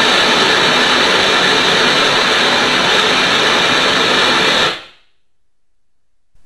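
Loud broadband test noise from the building-acoustics sound source (loudspeaker and power amplifier). It is switched on suddenly and runs steadily for almost five seconds, then cuts off and dies away in a short reverberant tail. This is the interrupted-noise excitation for a reverberation-time (T2) measurement, in which the room's decay after switch-off is what the meter measures.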